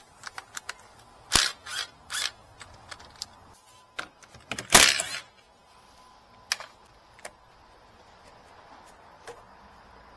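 Hand tools and parts being handled, making scattered sharp clicks and knocks. The loudest come a little over a second in and again about five seconds in, with fewer and fainter ones toward the end.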